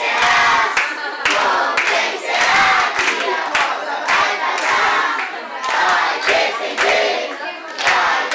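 A group of people singing together while clapping in time, a steady beat of claps under the voices.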